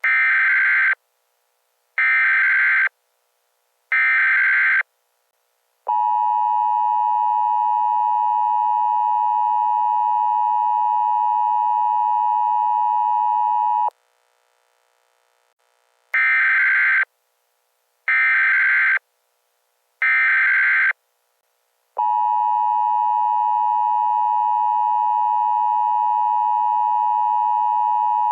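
Emergency Alert System signal: three roughly one-second bursts of the digital SAME header, then the steady two-tone attention signal for about eight seconds. After a short pause, the three header bursts and the attention tone begin again.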